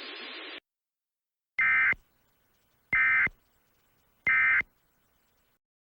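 Emergency Alert System end-of-message data tones: three short, identical bursts of screechy two-tone digital data, each about a third of a second long and a little over a second apart, signalling that the alert message is over. A brief hiss is heard just before them.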